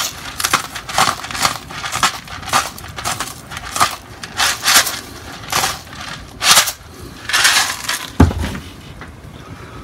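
Salt being ground from a hand-held salt grinder over a pan of sauce: a run of irregular crunchy grinding bursts, a few a second, for about eight seconds, then a single thump near the end.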